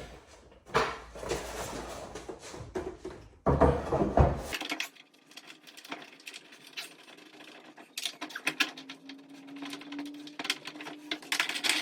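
Scattered knocks, clatter and rattling of a car hood being handled and set back into place on the car, with short irregular clicks throughout.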